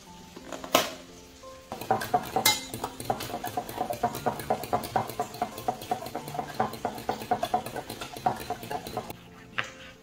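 A fork beating eggs in a glass Pyrex measuring jug: a fast, even run of metal-on-glass clinks lasting about seven seconds and stopping near the end, after one sharp clink about a second in. Soft background music with held notes plays underneath.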